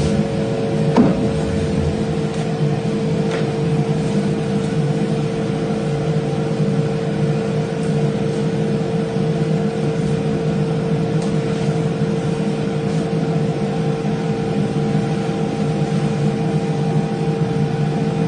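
A steady machine-like hum holding one constant tone, with a couple of faint clicks in the first few seconds.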